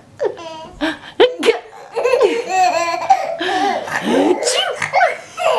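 Eight-month-old baby laughing in repeated bursts of belly laughter, set off by a woman's playful fake sneezes.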